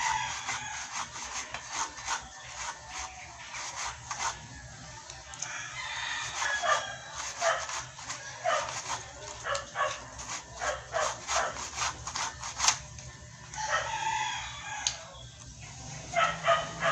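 A rooster crowing and chickens clucking, with a long crow about fourteen seconds in, over many sharp clicks.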